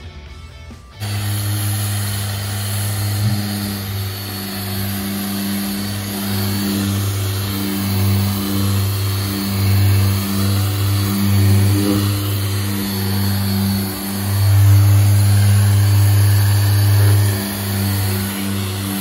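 Porter-Cable random orbital sander with a 180-grit disc, running against the painted surface of a car hardtop: a steady motor hum that starts about a second in, its loudness swelling and easing.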